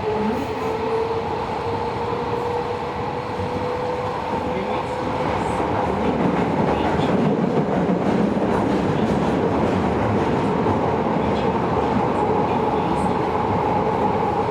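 Tobu 70000 series subway train heard from inside the car: the inverter and traction-motor whine rises in pitch over the first few seconds as the train picks up speed, then holds steady. Wheel and rail rumble runs under it and grows a little louder about halfway through.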